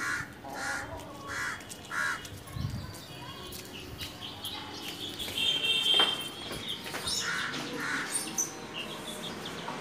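Birds calling: a run of harsh, repeated calls about two a second in the first couple of seconds, then a high, drawn-out whistled call past the middle, and more scattered calls near the end.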